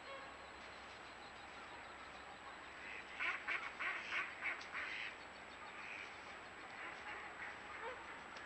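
A large flock of ducks and geese calling in the distance. A quick run of loud quacks and honks comes about three seconds in, then fainter calls continue.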